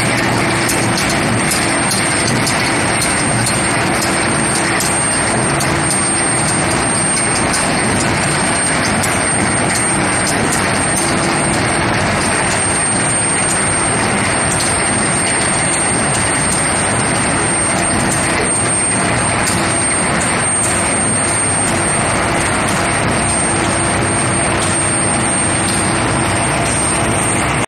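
Steady machinery noise from an induction forging line feeding steel bars through its heating coils, with a thin, steady high-pitched whine over it.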